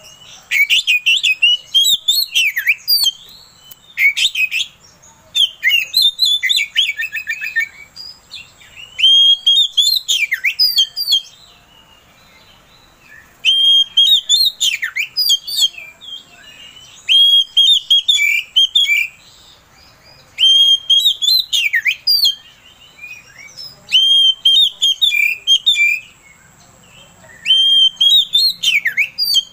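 Oriental magpie-robin (kacer) in full song: about nine loud phrases of rapid whistles and chirps, each lasting one to two seconds, separated by short pauses.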